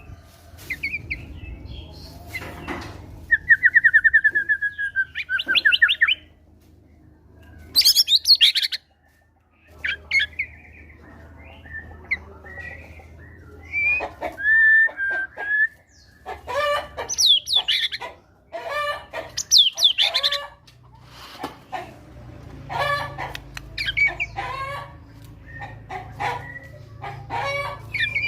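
White-rumped shama (murai batu) singing a varied fighter song of loud whistles, rapid trills and short harsh calls, broken by a pause of about a second some nine seconds in.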